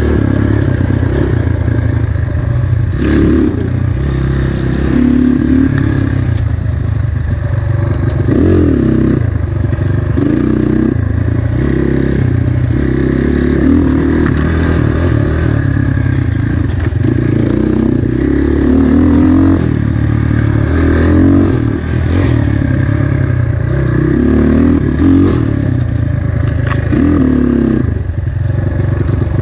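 Dirt bike engine being ridden, its pitch rising and falling continuously as the throttle is worked, with a few sharp knocks along the way.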